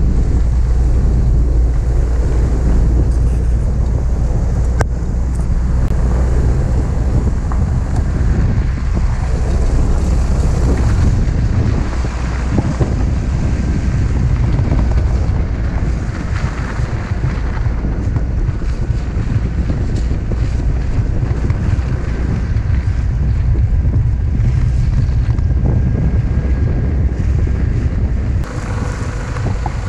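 Off-road farm vehicle engine running steadily as it drives up a snowy track, with heavy wind buffeting on the microphone. The rumble eases a little near the end.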